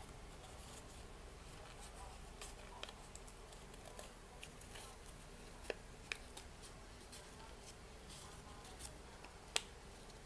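Faint rustling and crinkling of red craft paper as fingers roll the petals of a paper flower, with a few small sharp ticks of paper snapping, the sharpest near the end.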